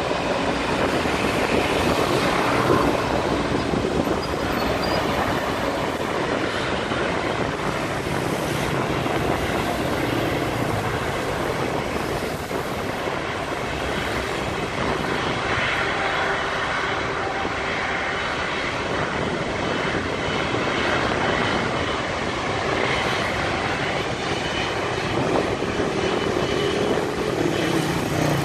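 Jet airliner's engines making a steady rushing noise as it comes down onto the runway and rolls out.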